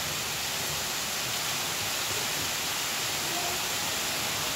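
Waterfall pouring, a steady even rush of falling water.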